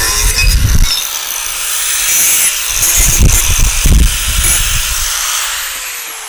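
Angle grinder running on metal, bearing in harder twice with a rougher grinding rumble, then let off so its whine winds down and fades near the end.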